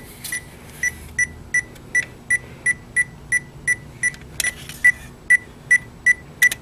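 Power Probe short finder receiver beeping: short, high-pitched beeps at an even pace of about three a second. The steady beeping signals that it is picking up the transmitter's signal through the wiring harness, so the repaired circuit is not open or shorted there.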